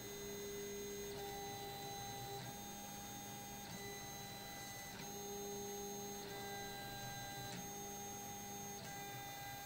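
Stepper motors driving the belts of a CoreXY 3D printer's gantry through a simulated print. They make a steady whine of several pitches that switch and shift every second or so as the carriage changes moves.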